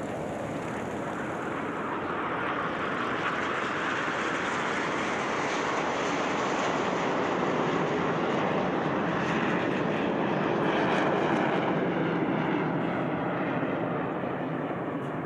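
Aermacchi MB-339 jets flying past overhead: a rushing jet noise that swells to its loudest about eleven seconds in and then fades a little.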